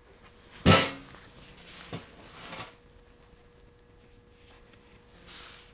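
Handling noise from a leather wallet on a metal tabletop: one sharp knock under a second in, then a smaller click and leather rustling, and a faint rustle near the end.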